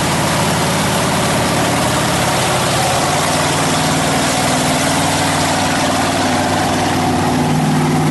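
Motorboat engine running steadily under way, with a constant rush of wind and water over it.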